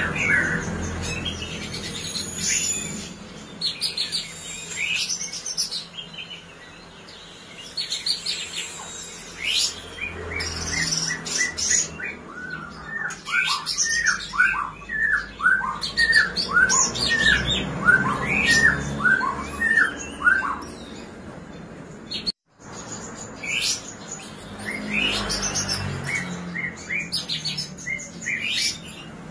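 Caged songbird singing a varied song of sharp chirps and whistles, with a long run of quick down-slurred notes in the middle. The song breaks off for an instant about two-thirds of the way through, then resumes with more chirps.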